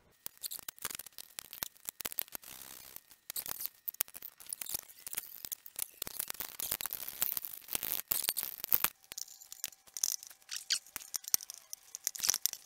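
Hands working the motorcycle's air box and rubber intake hose free from the carburetor, loosening the hose clamp: irregular clicks, scrapes and rustling of metal, rubber and plastic.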